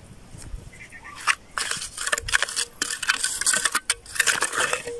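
Mason's trowel scraping and spreading wet cement over a concrete slab edge: a run of irregular, gritty scrapes starting about a second and a half in.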